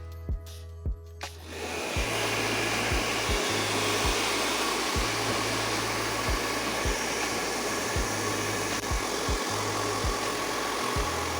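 A steady, even rushing noise starts about a second and a half in and holds, over background music with a steady beat.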